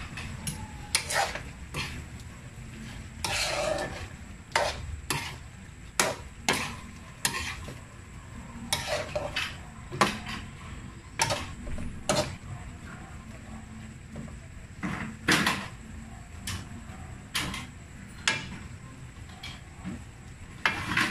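A metal ladle scraping and clinking against a metal cooking pot as a thick stew is stirred, in uneven strokes about once a second, over a low hiss from the simmering sauce.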